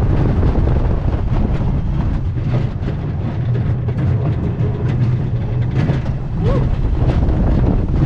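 Lightning Rod wooden roller coaster train running at speed along its track: a steady low rumble with dense rattling and clatter.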